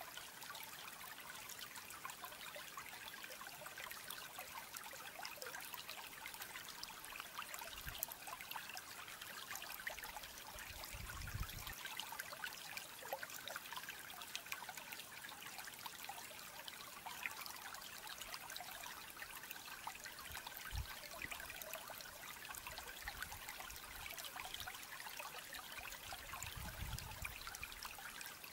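Steady faint hiss like trickling water, with a few soft low thumps along the way.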